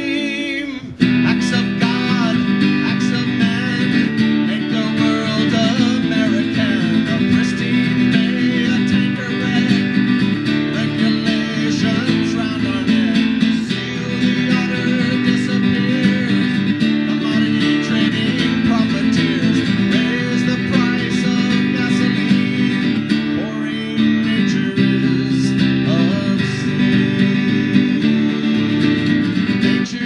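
A man singing a folk song into a microphone while strumming an acoustic guitar.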